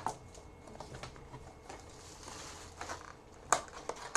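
Trading card packaging being handled and opened: faint rustling of wrapper and cardboard with a few sharp clicks and taps, the loudest about three and a half seconds in.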